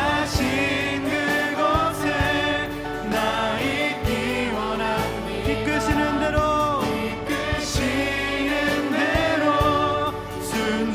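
Contemporary Korean worship song sung by several voices on microphones over acoustic guitar accompaniment.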